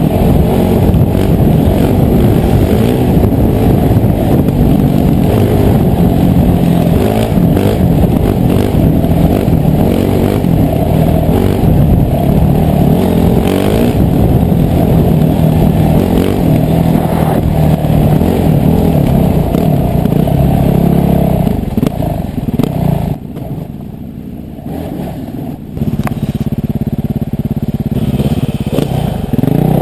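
Dirt bike engine running hard under throttle on a trail. Its note varies with speed, and a little over two-thirds through it falls much quieter for a few seconds as the throttle is eased off, then rises again.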